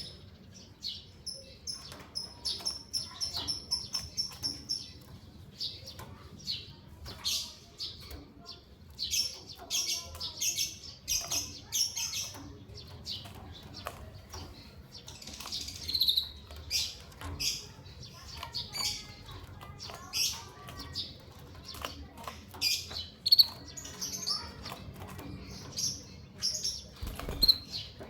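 A female canary and a male white-headed munia in a cage, giving short high chirps throughout, with wing flutters and small knocks. One high thin note is held for about four seconds near the start.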